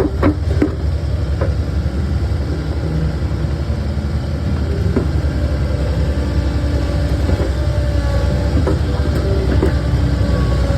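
A Takeuchi skid steer's diesel engine running steadily under work, with scattered metallic clanks and knocks from the machine.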